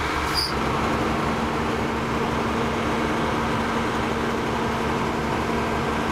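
Engine-driven power unit for hydraulic rescue tools running steadily, with a steady whine that starts about half a second in.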